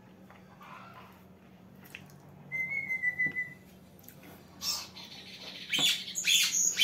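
Caged pet songbird calling: a quick run of sharp, high calls over the last two seconds or so. About two and a half seconds in there is a single short whistled note.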